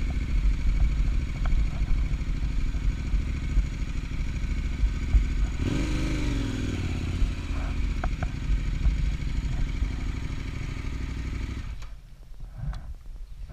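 Adventure motorcycle engine running at low speed over dirt. About six seconds in, an engine note rises and falls. About twelve seconds in, the engine is switched off, leaving a few light clicks.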